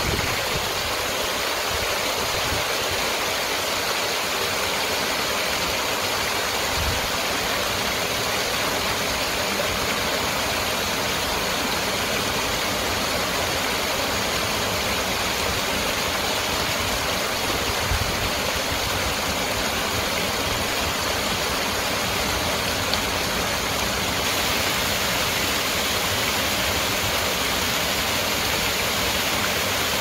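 Small waterfall of a stream pouring over rocks into a pool: a steady, even rush of falling and splashing water.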